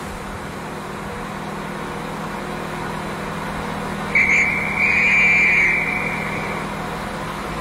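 Steady vehicle rumble with a low hum. About four seconds in, a shrill whistle sounds for about two seconds.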